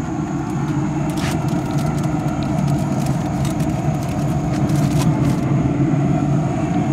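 A steady low rumbling hum with a few short crackles of aluminium foil as a foil packet is handled and set on a grill grate.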